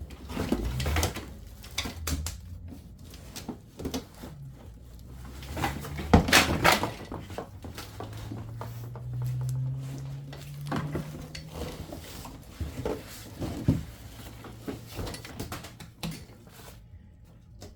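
Clatter, clicks and knocks of plastic tool parts and packaging being handled and set down during unboxing, with the loudest knock about six seconds in.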